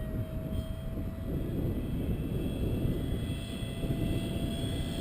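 Electric ducted fan of an RC jet, a 5-blade Dr Mad Thrust 70 mm fan, whining steadily in flight and slowly rising in pitch, over a low rumble.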